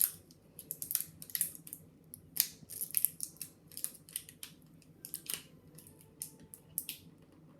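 A plastic slime container and its packaging being pried and twisted by hand: irregular crisp crackles and clicks, several a second.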